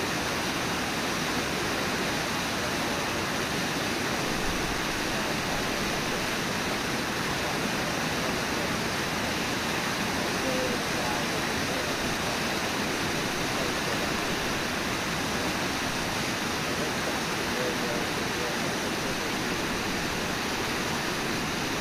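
Steady rush of water pouring over Brooks Falls and through the white-water rapids below it.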